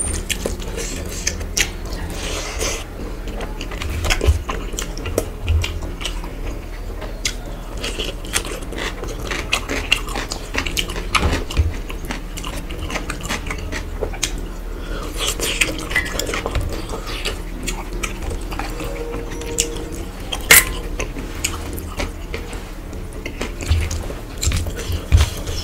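Close-miked eating: fingers mixing rice and curry on a steel plate and chewing, with many small clicks of fingers and food against the metal plate.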